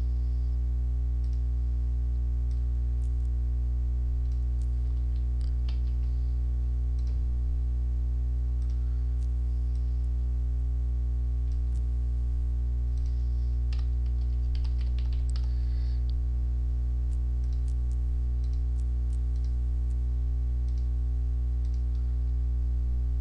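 Steady low electrical hum, with scattered computer keyboard typing and mouse clicks.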